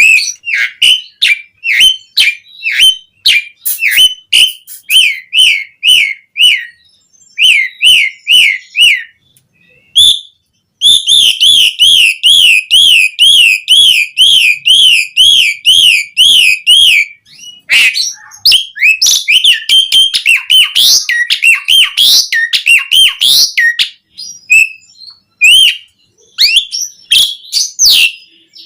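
Asian pied starling (jalak suren) singing loudly. It gives a string of short repeated whistled notes, then from about eleven seconds in a fast wavering run of notes lasting about six seconds, followed by mixed whistles and chattering notes.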